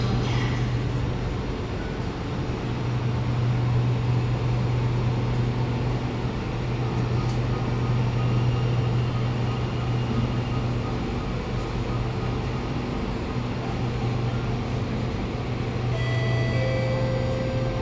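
Steady low hum inside a Kawasaki Nippon Sharyo C751B metro car standing at a platform with its doors open. Several steady high tones sound near the end.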